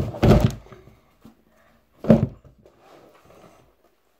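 Two dull thuds of objects being handled and set down, one at the start with a brief scuffle and another about two seconds in.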